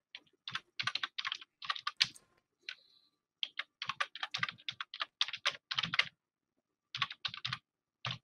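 Computer keyboard being typed on in quick runs of keystrokes with short pauses, with a longer break about six seconds in: someone typing a search.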